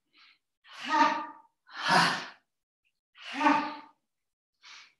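Forceful voiced 'ha!' exhalations, three in all, with faint quick in-breaths between. This is a yogic breathing exercise: the breath is pushed out with a 'ha' as the body swings down into a standing forward fold.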